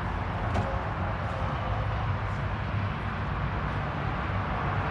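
Steady background rumble and hiss with a few faint clicks.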